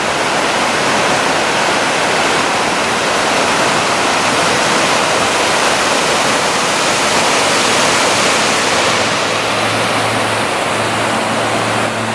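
Waterfall: a steady, unbroken rush of falling water, loud and even.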